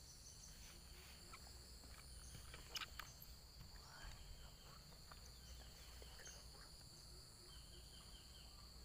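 Faint forest ambience: insects droning steadily at a high pitch, with a few short chirps and faint clicks, and one sharper click about three seconds in.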